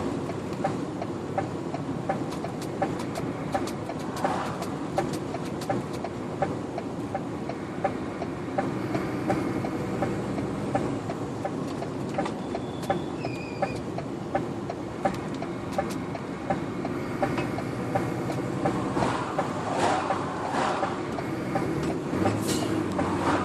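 Lorry cab at road speed: steady engine and road noise with a regular clicking, a few ticks a second, running through it.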